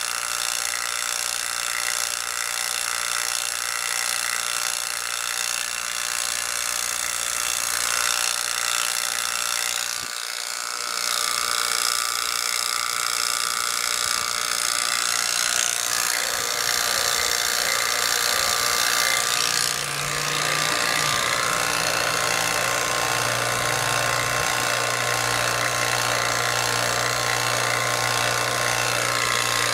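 JB Platinum DV-200N two-stage rotary vacuum pump running steadily, evacuating the refrigerant lines and coil of a newly installed air conditioner down to about 890 microns. The sound dips briefly about ten seconds in and changes tone about twenty seconds in.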